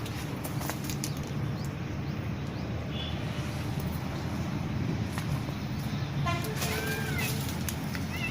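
A bird calling over a steady low rumble of traffic: one brief high note, then about six seconds in a quick rattle of ticks followed by short arched, rising-and-falling calls.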